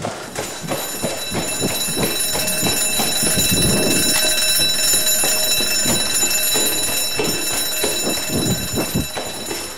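A loud, steady, ringing alarm starts just after the start, over quick running footsteps on a hard floor.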